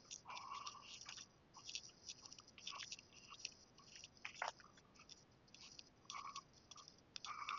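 Faint footsteps crunching in snow, a crunch about every second at walking pace.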